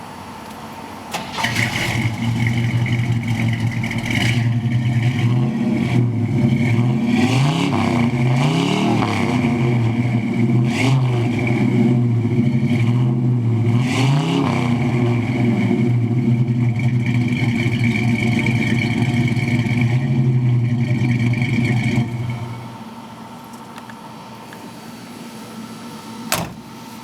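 Carbureted small-block Chevy V8 with a loud, open exhaust. It comes up about a second in, idles, and is revved in several quick blips, then drops away about five seconds before the end.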